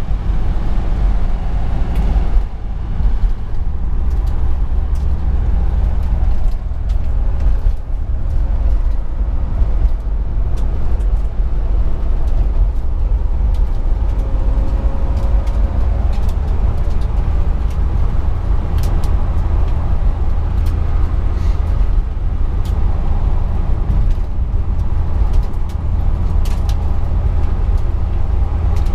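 Inside the cabin of a 1956 Dodge Sierra wagon on the move: a steady low rumble of road and tyre noise over a quietly running 315 V8, with a few light clicks and rattles.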